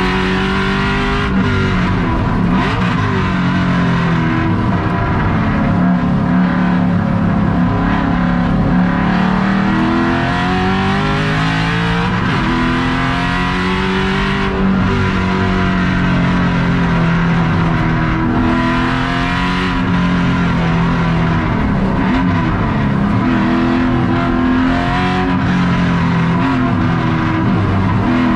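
Race car's engine heard from inside the caged cockpit at full track pace, its pitch climbing under acceleration and dropping back at shifts and braking, over and over, with heavy road noise.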